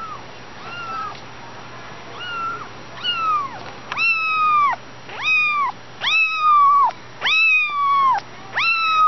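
Kitten meowing over and over, about nine calls, each rising then falling in pitch and lasting under a second. The calls start faint and get loud from about halfway through.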